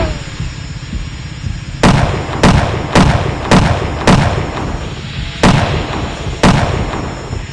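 Handgun shots: seven sharp shots at an irregular pace, each ringing out briefly in a large hall. Right at the start comes a single crack with a quickly falling tone.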